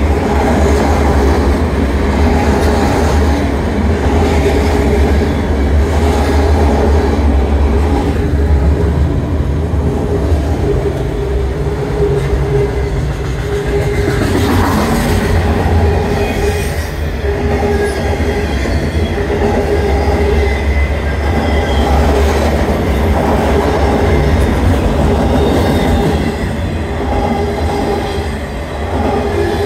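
Freight train of autorack cars rolling past close by: a steady rumble of steel wheels on rail, with a wheel squeal that comes and goes.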